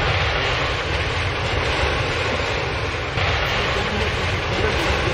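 Jet airliner engine noise, a steady rumble and hiss of an aircraft taking off, played as a sound effect; the hiss grows a little brighter about three seconds in.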